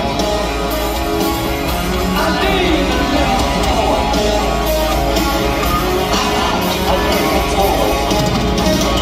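Live hard rock band playing at full volume: electric guitars with a male lead vocal, heard from the crowd in an arena.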